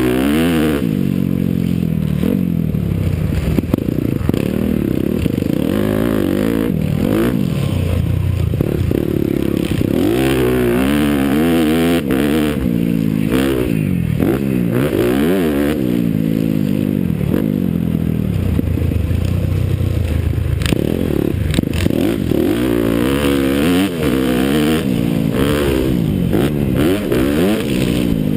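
Honda CRF250R's single-cylinder four-stroke engine heard up close from the bike, revving up and dropping back again and again as it is ridden hard around a motocross track.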